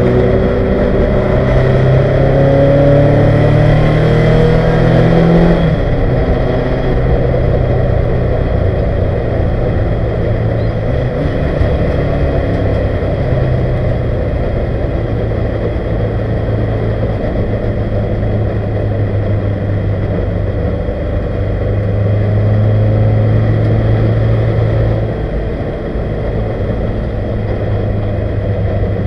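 1971 Ford Capri 2.0-litre race engine heard from inside the cockpit, revving higher through the first few seconds. Its note breaks off suddenly about six seconds in, then it runs steadily under load, dipping briefly near the end.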